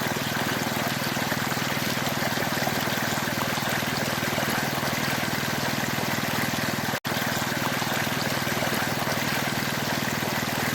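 Greaves engine-driven machine running at a steady speed, with a low even hum and a constant rushing noise over it. The sound breaks off for an instant about seven seconds in.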